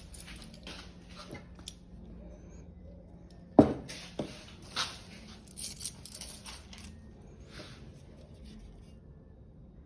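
Objects being handled at close range: rustling and light clicks, with a sharp knock about three and a half seconds in and a few smaller knocks after it.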